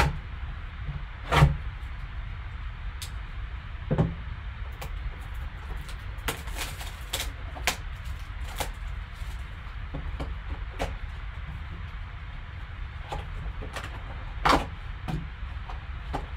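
Handling of a cardboard trading-card box as it is unsealed and opened: many small clicks, scrapes and rustles, with a few louder knocks, over a steady low hum.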